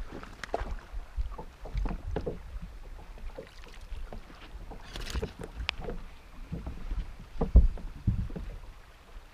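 Water lapping against a bass boat's hull, with low wind on the microphone and scattered knocks and thumps on the boat's deck as a hooked bass is played and swung aboard. A brief splashy hiss comes about halfway through, and the loudest thump comes about three quarters of the way through.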